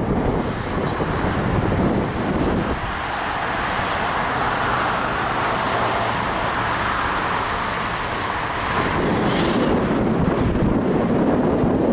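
Road traffic going by: a steady rush of car tyres and engines, with wind rumbling on the microphone at the start and again near the end.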